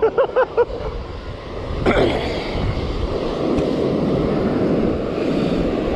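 Steady rushing noise of strong wind on the microphone, with breaking surf beneath it. It swells about two seconds in. Right at the start there is a quick run of short pitched sounds.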